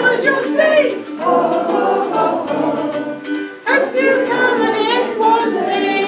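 A voice singing a song to a strummed ukulele, with steady, regular strums under the melody.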